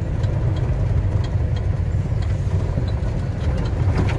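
Steady low rumble of a truck's engine and tyres, heard from inside the cab while it drives along a highway.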